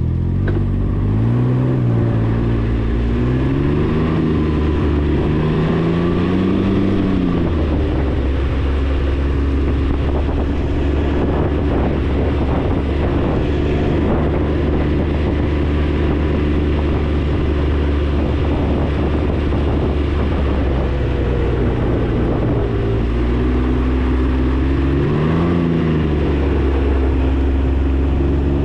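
Can-Am Ryker 900's three-cylinder engine running under way, its pitch rising and falling as the rider speeds up and eases off in the first seven seconds and again about three-quarters through, holding steady in between, with wind noise over it.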